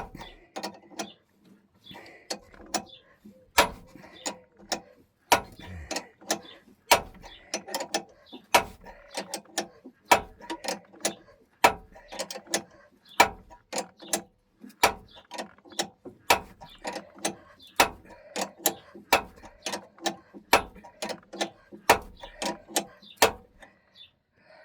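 Ratchet wrench worked back and forth on a long bolt, its pawl clicking in runs of light clicks, with a louder click about every second and a half.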